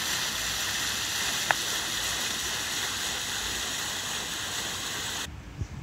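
Steady rushing and splashing of water, with one sharp click about a second and a half in. The water sound cuts off abruptly about five seconds in, leaving a much quieter background.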